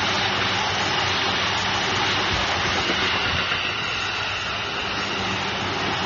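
Electric commuter train running past at close range: a steady rumble of wheels on rails with a steady hum over it.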